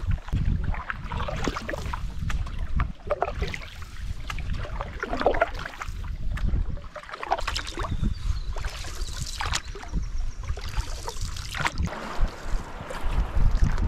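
Canoe on a moving river: irregular splashes of paddle strokes and water against the hull, over a gusty rumble of wind buffeting the microphone.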